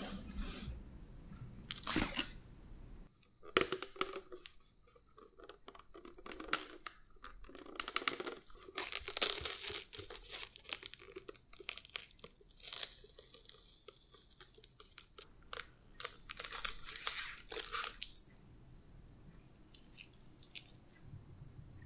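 Sealed plastic fruit yogurt jelly cups clicking and crinkling against each other and against a plastic jar as they are taken out by hand. The rustling and knocking come in irregular bursts and die down near the end.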